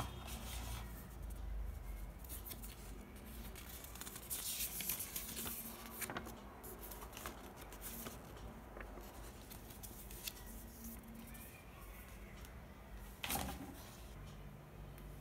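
Hands handling a phone box's card and plastic packaging: scattered rustling, sliding and light taps, with a denser crinkly rustle about four to five seconds in and a sharp click about thirteen seconds in.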